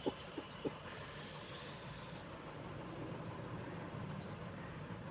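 Handling noise as a smartphone is lifted out of its box and turned over: three light clicks in the first second, then a brief soft rustle, over a steady low background hum.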